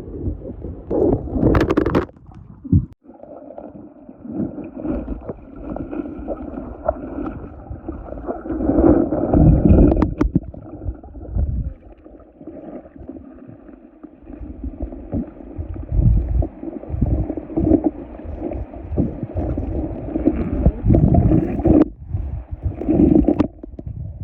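Water sloshing and splashing around a boat, swelling and fading, with a faint steady drone underneath.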